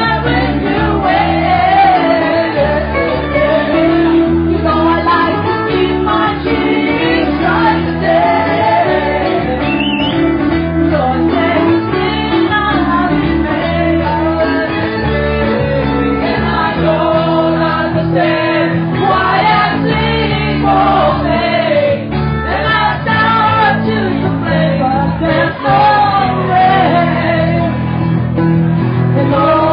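A woman singing lead into a handheld microphone over live band accompaniment, amplified through the venue's sound system.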